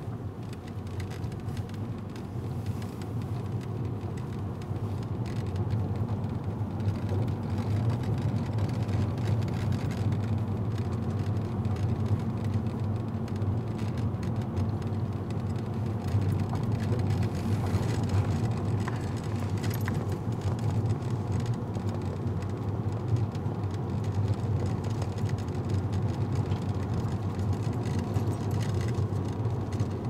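Steady low rumble of a car's engine and tyres heard from inside the cabin while it drives along a paved road.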